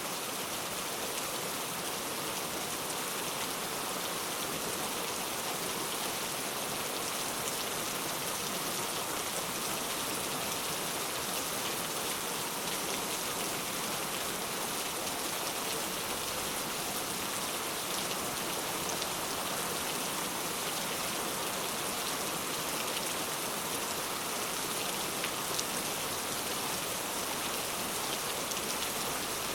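Heavy rain falling steadily, a dense even hiss of countless drops with no let-up.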